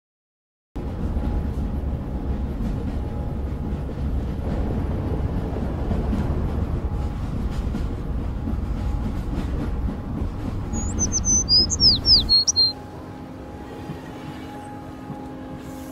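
Steady rumbling outdoor ambient noise, with a bird chirping a quick run of short descending whistles near the end. The rumble then cuts off abruptly, and soft sustained music notes begin.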